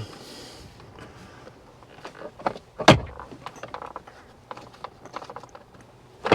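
Plastic interior trim of a Ford Bronco being handled and worked loose: scattered clicks and knocks, with one sharp knock about three seconds in.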